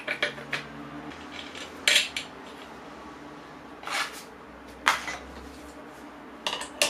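Sharp metallic clinks of a steel flange washer and nut being fitted and spun onto a bench grinder's threaded spindle against the abrasive wheel. The clinks are separate and a second or so apart.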